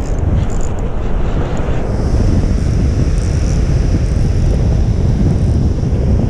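Strong wind buffeting the microphone, a loud steady low rush, over waves breaking on rocks.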